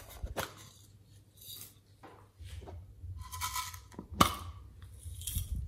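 Small plastic slime-add-in containers being handled and opened: plastic clicking, rustling and scraping, with one sharp click about four seconds in.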